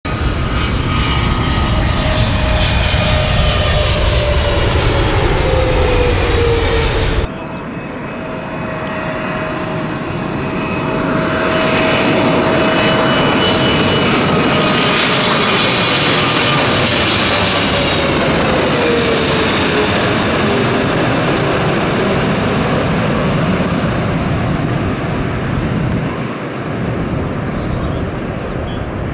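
Jet airliners passing low overhead on landing approach, the engine whine dropping in pitch as each one goes over. About seven seconds in the sound cuts suddenly to a second low pass, which swells up, falls in pitch and fades off near the end.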